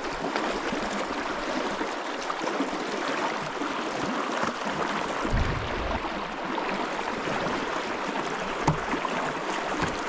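River water flowing, a steady rushing hiss.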